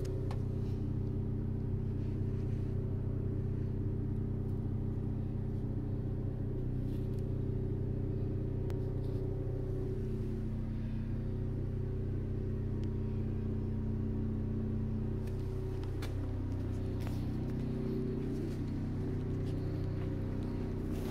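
A car engine idling steadily: a low, even hum whose pitch wavers slightly now and then.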